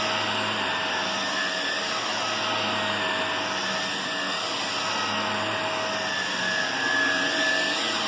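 Shark upright vacuum cleaner running steadily, its motor droning with a constant whine while it is pushed over carpet.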